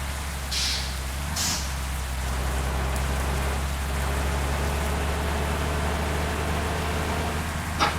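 Steady heavy rain over the low, even drone of a bus engine, with two short hisses about half a second and a second and a half in.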